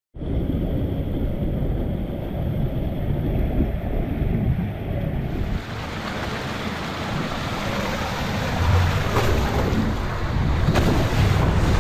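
Water rushing steadily down the entry of a stainless steel speed slide, with wind buffeting the microphone. The rush fills out and grows a little louder about halfway through.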